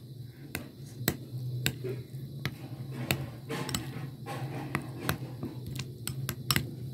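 A spoon stirring thick mayonnaise sauce in a glass bowl, knocking and scraping against the glass in irregular sharp clicks. A low steady hum runs underneath.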